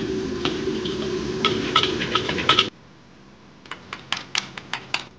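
Metal strainer and ladle clanking against a wok over a steady background of wok-burner and frying noise. About two and a half seconds in it cuts off abruptly, and a run of light, sharp clicks follows as a ladle spoons the topping onto a plate.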